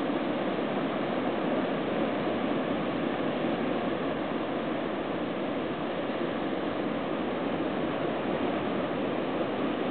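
Steady, even wash of surf.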